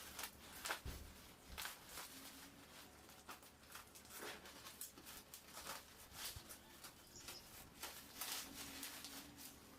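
Faint, scattered clicks and light crinkles of items and packaging being handled, in a quiet room.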